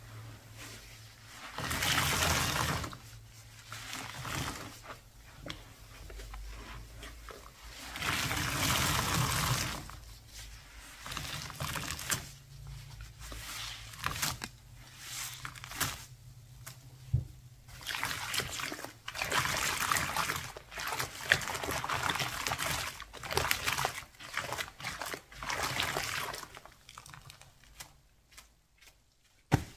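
Liquid being poured and trickling, in several spells with quieter gaps between, the longest in the second half.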